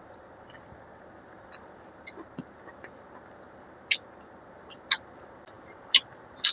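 Close-up eating sounds: wet mouth smacks and clicks from someone chewing curry and rice. They come about once a second in the second half, over a steady hiss.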